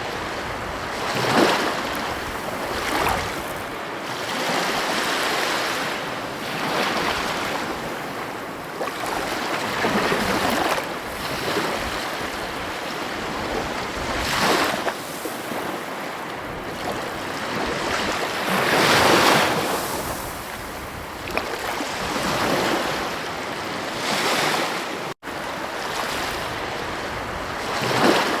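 Ocean waves breaking and washing on a beach: a steady surf hiss that swells with each wave every few seconds. The sound cuts out for an instant near the end.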